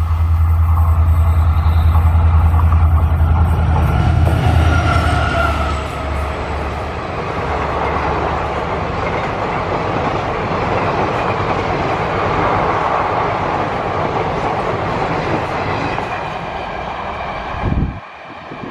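WDG4 diesel locomotive's two-stroke EMD engine drones loudly as it passes close by. Its passenger coaches follow with steady wheel-on-rail rumble and brief wheel squeal on the curve. The sound cuts off suddenly near the end.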